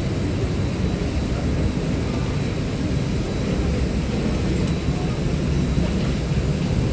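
Steady low rumble of a parked airliner at the gate, with a faint high steady whine above it.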